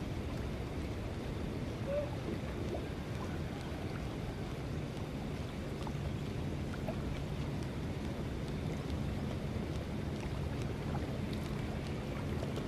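Harbour ambience: a steady low rumble of wind and water, joined about five seconds in by a faint, steady engine hum.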